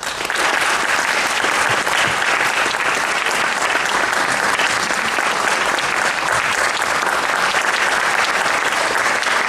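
Audience applauding: dense, even clapping that starts abruptly and keeps up at a steady level.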